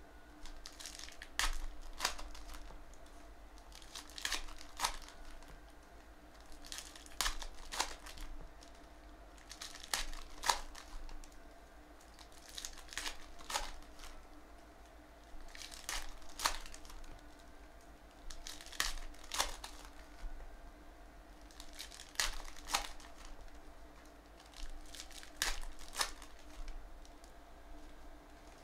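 Foil trading-card packs being torn open one after another: pairs of sharp foil crinkles about every three seconds, roughly nine packs in all, over a faint steady room hum.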